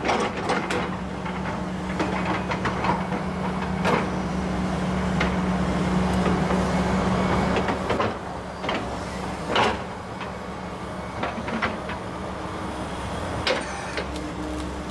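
Volvo ECR145EL excavator's diesel engine running steadily under working load, heavier for the first half and easing after about eight seconds, with a few sharp knocks and cracks, three of them standing out, from the machine at work.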